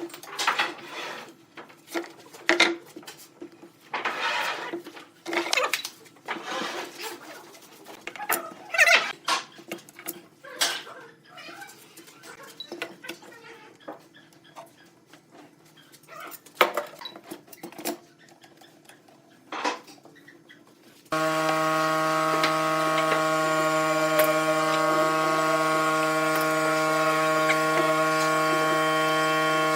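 Irregular knocks, clicks and scrapes of workshop handling. About two thirds of the way through it switches abruptly to a steady electric hum with many even tones: a woodturning lathe's motor running.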